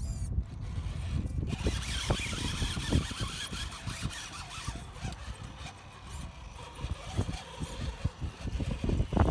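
Cen F450 RC crawler truck driving on its electric motor and TRX-4 two-speed transmission, with a faint high whine from the drivetrain and a few short knocks.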